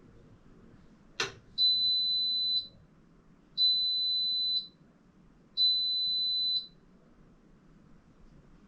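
Electrolux EW6S404WU washing machine sounding three long, steady high-pitched beeps about two seconds apart, its end-of-programme signal, just after a single sharp click.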